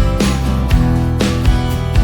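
Background music: an upbeat acoustic-guitar track with a steady beat.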